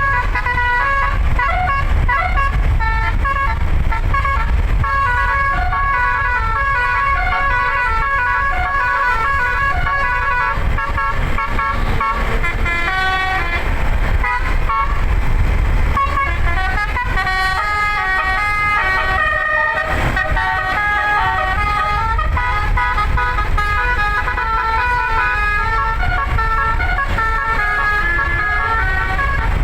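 Eleven-note 'basuri' musical bus air horn (telolet) playing a fast melody of short, stepped notes, over a steady low rumble.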